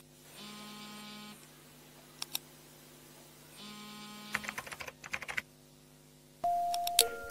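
Sound effects of a computer keyboard and mouse: two clicks, then a quick run of keyboard typing clicks, each group preceded by a short electronic hum. Near the end a steady musical tone starts.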